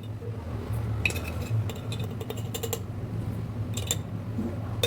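A spoon clinking against glass and ceramic dishes, several light separate clinks, over a steady low hum.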